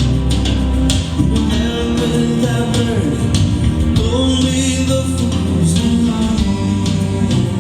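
Rock ballad with male singing, guitar and a steady beat, played back through Nubert nuLine 334 stereo loudspeakers.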